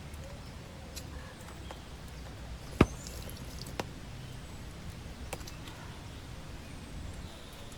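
A few scattered sharp clicks and taps, one much louder than the rest about three seconds in, over a low steady rumble.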